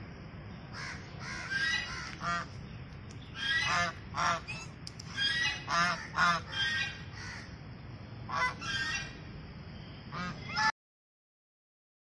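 White domestic geese honking, short calls coming in quick runs of two to four with pauses between. The sound cuts off abruptly near the end.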